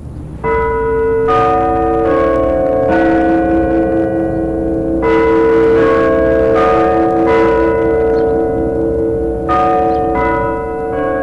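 Clock-tower bells at Lyons Township High School's North Campus playing a chime tune. There are three four-note phrases, each struck at just over one note a second, with a pause between phrases and the bells ringing on, as the lead-in to the hour strikes. It is heard as a recording pressed onto a 1969 LP.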